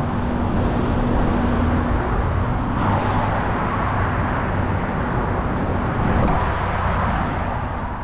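Loud steady rumble of roadway traffic with a low steady hum, beginning to fade near the end.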